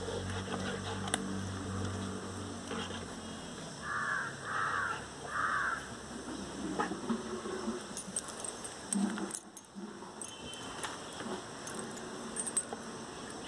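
Rottweiler puppy chewing and pulling at a wooden stick: crackling, clicking bites on the wood, most of them in the second half, with the metal chain leash jingling. Three short calls from a bird sound near the middle.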